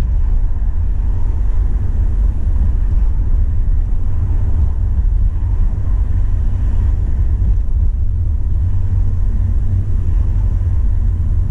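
Steady low rumble of a car on the move: engine and road noise heard from inside the car.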